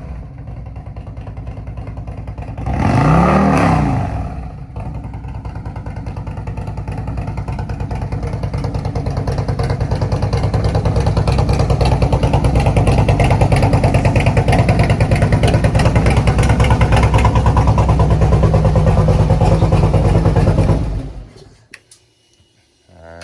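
Harley-Davidson Road Glide's freshly replaced 131 cubic-inch V-twin running at idle with a loud exhaust and a pulsing beat, given one quick blip of the throttle about three seconds in. It then idles on, growing steadily louder, and stops suddenly about 21 seconds in.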